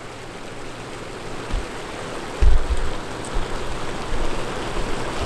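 Hot tub jets running at full power, the water churning and bubbling steadily. A short low rumble about two and a half seconds in.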